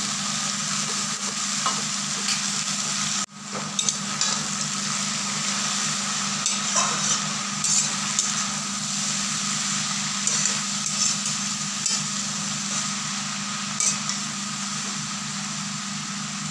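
Chopped water spinach (kalmi saag) and potatoes sizzling in hot oil in an aluminium kadhai. A metal spatula scrapes and clicks against the pan as it is stirred. The sizzle drops out for a moment about three seconds in.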